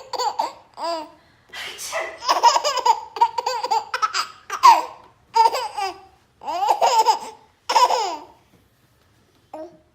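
Baby laughing in repeated bursts of high-pitched giggles, which die away about eight and a half seconds in.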